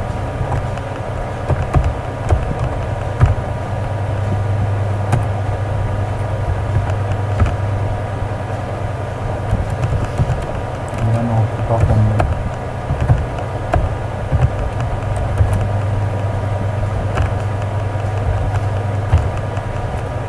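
Steady low hum with scattered light clicks of computer keyboard typing.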